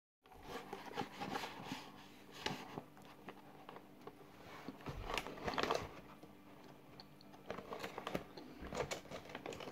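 Cornflour (cornstarch) being eaten with a straw: the straw scraping and crunching through the powder in its cardboard box and the powder chewed, in irregular bursts of crunchy clicks.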